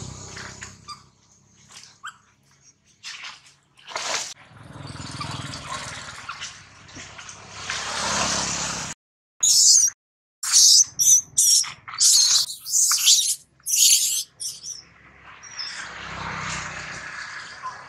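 A young long-tailed macaque cries in a run of loud, short, shrill squeals. Before and after the squeals, motorbikes pass with a rising and fading rush of engine and tyre noise.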